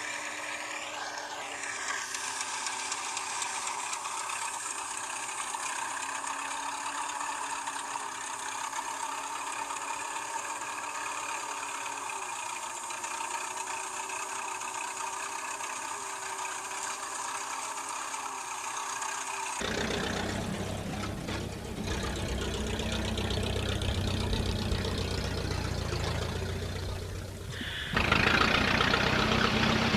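Vintage tractor engine running, coming in abruptly about two-thirds of the way through and getting louder near the end. Before that there is only a steady hiss with faint thin hums.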